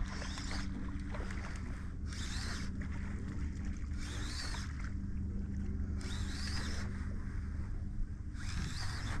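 Shallow saltwater swishing and lapping in short washes about every two seconds, over a steady low hum.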